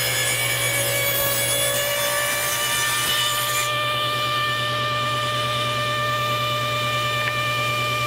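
Table saw running and cutting a raised-panel bevel into the edge of a small wooden box lid fed on edge along the fence, a steady motor whine under the hiss of the blade in the wood. The hiss of the cut thins out a little under four seconds in while the saw keeps running.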